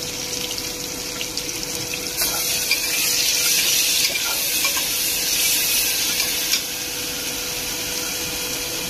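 Onion, tomato and ginger-garlic paste sizzling in hot oil in a pressure cooker, stirred with a metal spatula. The sizzle grows louder from about two seconds in until about six and a half seconds, with a few light clicks of the spatula against the pot.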